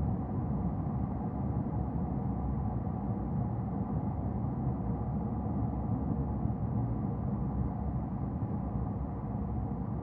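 Car being driven: a steady low rumble of engine and tyre noise.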